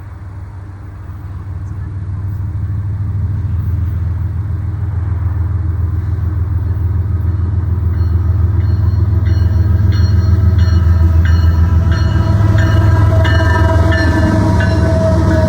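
Norfolk Southern GE ES44AC diesel locomotive with its V12 engine hauling an intermodal freight train. A deep engine drone grows louder over the first few seconds as it approaches. From about halfway on, the wheels click rhythmically over rail joints under a steady higher-pitched ringing.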